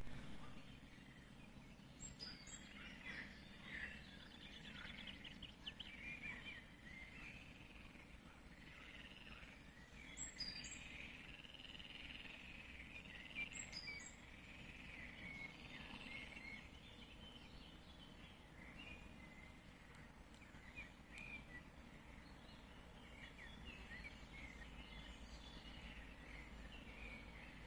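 Faint birdsong: several birds singing and chirping over and over, with a few sharper high calls, over a low steady background rumble.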